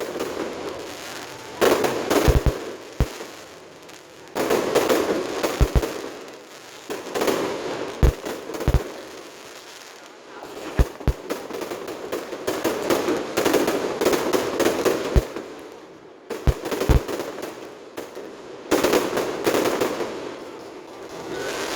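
Aerial fireworks going off: a run of sharp bangs and crackling, coming in loud clusters every one to three seconds.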